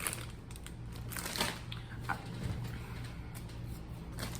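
A few faint, short crunches and crackles of a crunchy chicken-flavoured snack, over a low steady hum.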